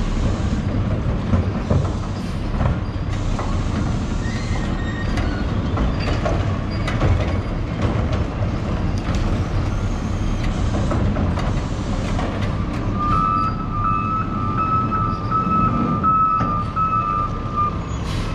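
Garbage truck's diesel engine running steadily, with scattered short knocks and rattles. About thirteen seconds in, its backup alarm starts beeping about twice a second, the signal that the truck is reversing.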